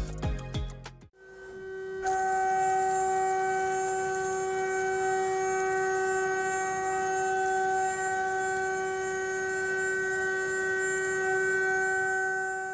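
CNC milling spindle running at a steady high speed with a constant high-pitched whine, held unchanged for about ten seconds. Background music plays briefly before the whine fades in.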